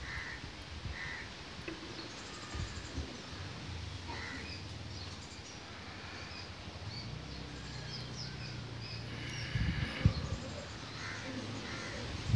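Crows cawing now and then, over faint small metal clicks of a screwdriver working at a motorcycle carburettor. A low hum runs through the middle, and one sharp click comes about ten seconds in.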